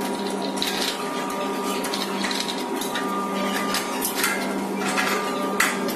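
Steel printer parts clinking and knocking as a bracket and roller holder are fitted onto a steel shaft: irregular sharp metal clinks, the loudest near the end, over a steady hum.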